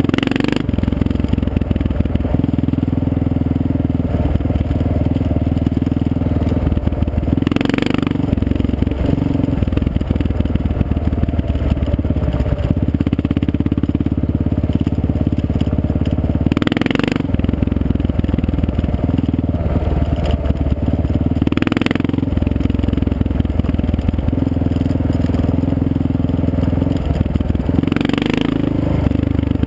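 Motorcycle engine running steadily while under way on a gravel road, heard from on the bike, with tyre and wind noise. About five times the engine note shifts around a brief rush of noise.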